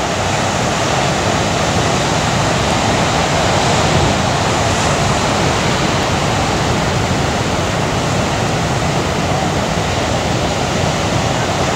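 Ocean waves breaking, a steady rush of surf and white water.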